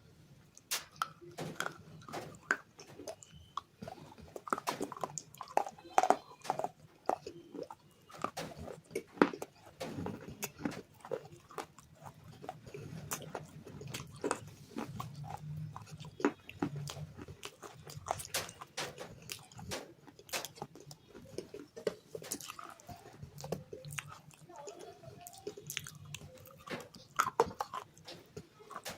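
Close-miked biting and chewing of hard, crunchy clay bars, with irregular sharp cracks and crunches several times a second.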